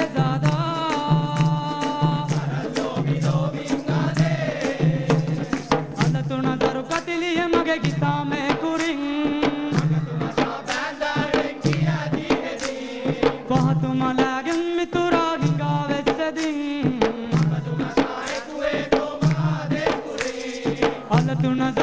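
Boduberu ensemble: several large Maldivian boduberu drums beaten by hand in a fast, steady rhythm, under a man singing the lead melody.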